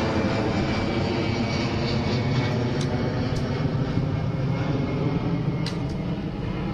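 Twin-engine jet airliner passing low overhead: a loud, steady engine rumble, with a thin high whine that fades out after about two seconds.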